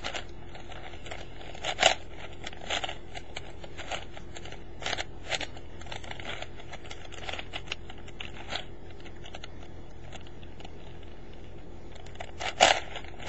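Plastic 4x4x4 Rubik's Revenge cube being turned by hand: irregular clicks and clacks of its layers rotating, with a sharper clack about two seconds in and another near the end.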